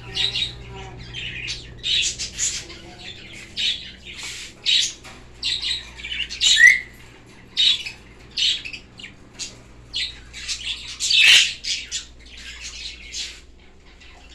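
A group of birds squawking: short, harsh calls repeated one or two a second, with a louder one about eleven seconds in.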